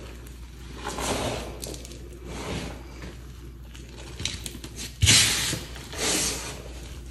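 Hands squeezing and raking through crushed pasted chalk powder and crumbs, giving crunchy, crispy scrunching strokes. There are about five strokes, and the loudest comes about five seconds in.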